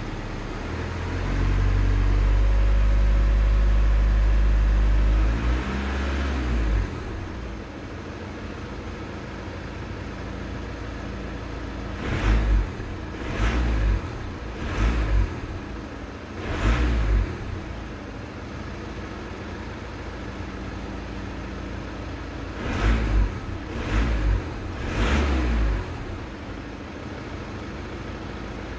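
Car engine revved from the accelerator pedal, heard from inside the cabin: one rev held for about four seconds and then let fall back to idle, then two bursts of short, quick throttle blips, about four near the middle and three near the end, idling in between.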